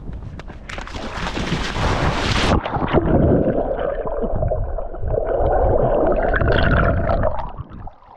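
A splash as someone jumps into the sea, then muffled gurgling and churning of water heard from under the surface for about five seconds.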